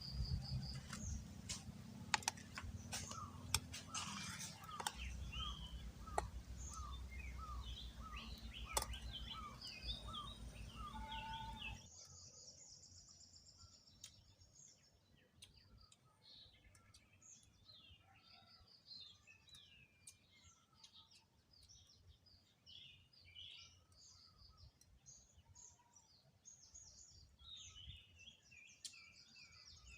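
Wild birds calling and chirping. For about the first twelve seconds a low rumble and scattered clicks run underneath, while one bird repeats a short falling note roughly every half second. Then the sound drops suddenly to quieter, busy high-pitched chirping from several birds.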